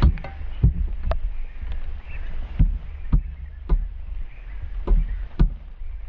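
A Eurasian magpie pecking right at the camera: sharp knocks and taps, about ten in six seconds at uneven spacing, over a steady low rumble.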